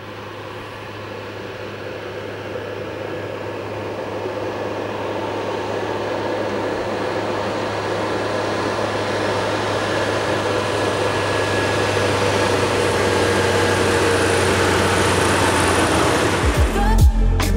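Deutz-Fahr Agrotron 150 tractor's six-cylinder diesel engine and tyres on a paved road, approaching and growing steadily louder as it comes close and passes. Music comes in near the end.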